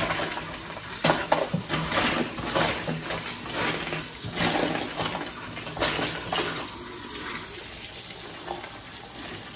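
Hot water running from a kitchen tap into the sink, with irregular clatters and knocks as ice from a full ice bin is dumped in.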